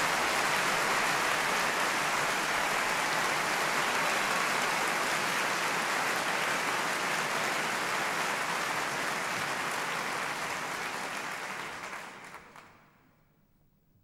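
Theatre audience applauding steadily, the applause dying away about twelve seconds in.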